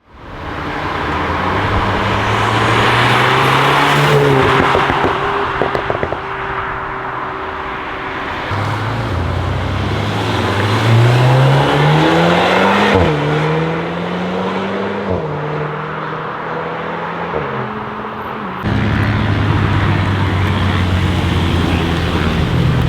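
Volkswagen Golf 8R's turbocharged 2.0-litre four-cylinder engine and exhaust under hard acceleration, its pitch rising through the gears with a sudden drop at an upshift about 13 seconds in, then falling as it eases off. About 19 seconds in the sound changes abruptly to a steady, loud engine note.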